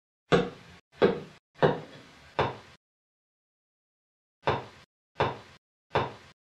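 A series of sharp knocks: four evenly spaced about two-thirds of a second apart, a pause, then three more.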